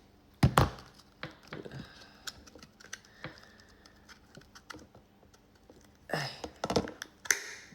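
Small hard plastic pieces being handled and knocked on a tabletop: two sharp clacks about half a second in, scattered light clicks, then a burst of knocks and scraping near the end.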